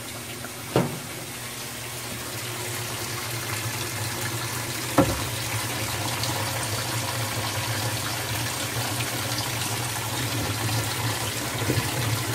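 GE GTW330ASK4WW top-loading washer filling: water pouring from the fill spout into the tub as a steady rush that builds slightly, over a low hum. A sharp click comes about a second in and a louder knock about five seconds in.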